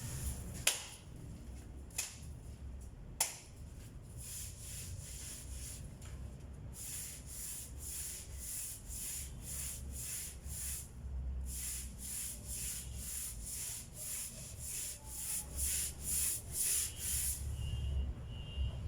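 Hand sanding a table with 400-grit sandpaper: back-and-forth rubbing strokes at about two a second, with a few sharp clicks in the first few seconds.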